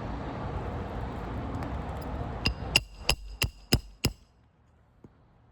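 Hammer striking a 3-tab asphalt shingle on a roof, six quick, sharp blows starting about halfway in, each with a short metallic ring. The blows test the shingle for a cracking mat and loose granules. A steady rushing background noise runs under the first half.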